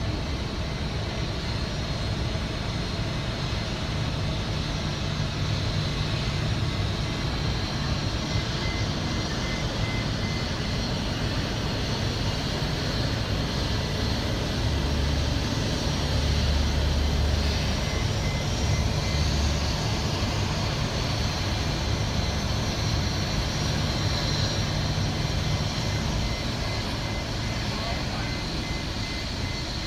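Boeing 737 jet engines idling as the airliner rolls up to the gate and stops, heard through the terminal glass: a steady low rumble with a thin high whine, swelling a little about halfway through.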